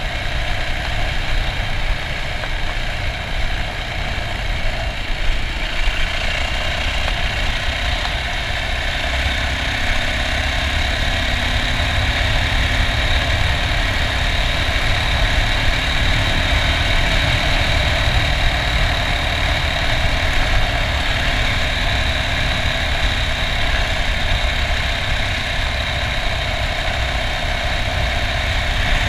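Yamaha dirt bike engine running steadily while riding, heard from on the bike, picking up slightly about six seconds in. Wind rumbles on the microphone underneath.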